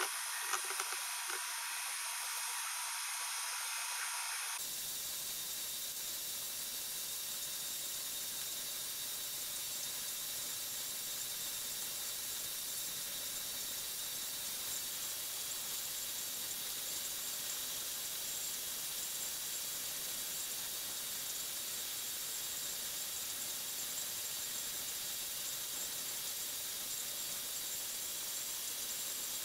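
Steady hissing noise with no rhythm or pitch. Its tone shifts abruptly about four and a half seconds in, becoming fuller in the low end.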